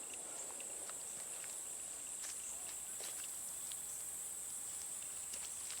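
Steady high-pitched insect chorus, a continuous even drone of late-summer field insects, with a few faint scattered clicks.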